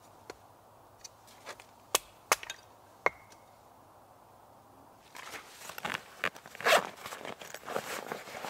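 A few sharp knocks about two to three seconds in, one with a brief ring. From about five seconds on, rustling and handling of a nylon backpack as a hand opens and reaches into its front pocket.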